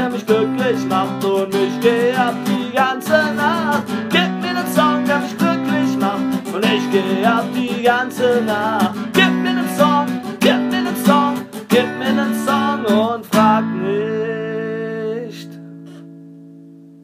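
Unplugged acoustic guitar strumming the song's outro, with a melody line bending in pitch above the chords. Near the end a final strummed chord rings out and slowly fades.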